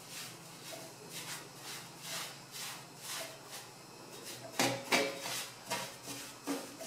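Paintbrush sweeping soot off the underside of a wood stove's metal top plate in short repeated strokes, about two a second, with a few sharper knocks a little past the middle.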